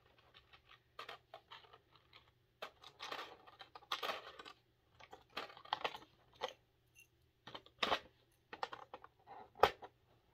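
Loose beads in a bracelet kit's box clicking and rattling as they are pushed around by hand, in irregular small clicks and short rustling scrapes, with sharper clicks about 8 and 9.5 seconds in.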